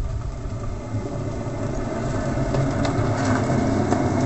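Low rolling rumble that grows steadily louder as something approaches along the asphalt road, with faint scattered ticks above it.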